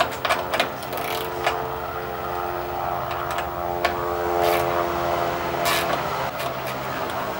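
Steel socket and wrench tightening a nut on a countersunk screw, giving scattered sharp clicks and scrapes as the nut draws the screw in to flare a ferrule into the fiberglass cowl. A steady motor drone of several pitched tones runs underneath.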